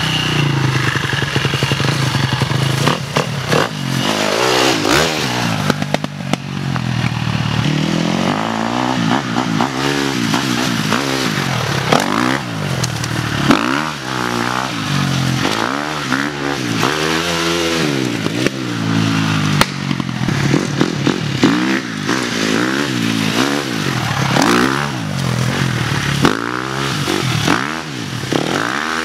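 Dirt bike engine being ridden hard, revving up and dropping back again and again, its pitch rising and falling about once a second.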